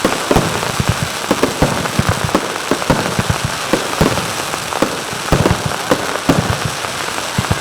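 Aerial fireworks shells bursting in quick, irregular succession: a dense run of sharp pops and bangs over a constant crackling haze.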